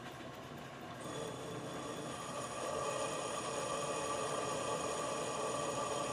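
Metal lathe running under a cut: a steady whine with several tones comes in about a second in, grows louder and holds.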